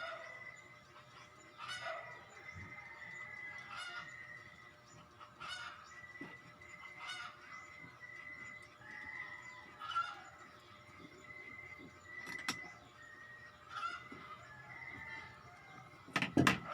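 Poultry calling in short repeated calls, one about every one and a half to two seconds, over a steady high-pitched whine. Near the end there is one loud clatter.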